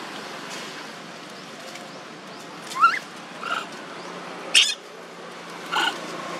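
Baby macaques giving four short, high squeals in the second half, the first rising in pitch and the third sharper and louder, over a steady hiss.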